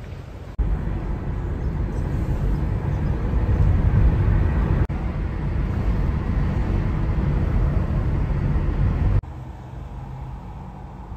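Steady rumble of car and road noise from a vehicle driving, loud and weighted to the low end. It cuts in abruptly about half a second in, breaks briefly near the middle, and drops away suddenly near the end to quieter street ambience.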